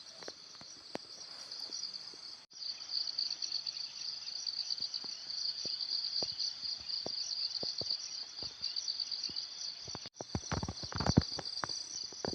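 Steady high-pitched chorus of insects trilling, with scattered faint knocks and ticks that grow more frequent near the end. The whole sound cuts out for an instant twice.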